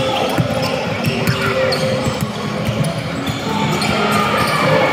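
Basketball bouncing on a gym court during play, a run of short thumps, with players' and spectators' voices calling out in the background.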